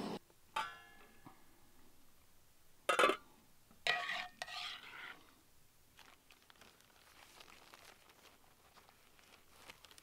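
Camp cooking sounds: a metal pan lid clinks and rings briefly, then come two short bursts of rustling and scraping, and after them faint handling sounds of tortillas and their plastic bag.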